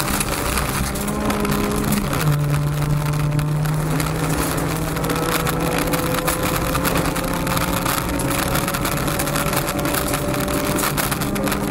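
Honda Civic rally car's four-cylinder engine running hard, heard from inside the cabin over gravel and tyre noise with small stone clicks. Its pitch drops sharply once about two seconds in, as it shifts up a gear, then climbs slowly as the car accelerates.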